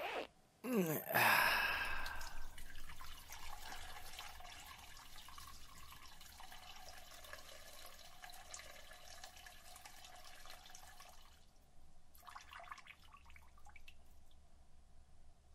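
A brief sighing voice about a second in, then a stream of liquid trickling into a urinal for several seconds: a peeing sound effect. The stream fades away, with one short last spurt near the end.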